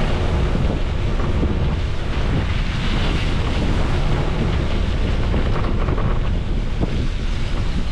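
Wind buffeting the microphone: a loud, steady low rumble with hiss above it.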